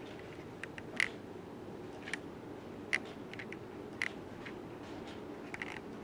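Hunter Allendale ceiling fan running quietly with a steady low whir, with a handful of sharp clicks scattered at uneven intervals.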